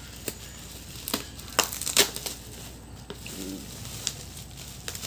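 Bubble wrap and a plastic bag being torn and pulled off a cardboard box, crinkling with a run of sharp crackles, loudest about one and a half to two seconds in. A brief murmur of a voice comes about three and a half seconds in.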